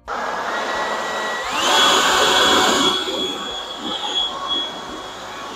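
Battery-powered leaf blower running: a rush of air with a high motor whine that steps up in pitch about a second and a half in as it is throttled up. It is loudest for about a second after the step-up, then steady.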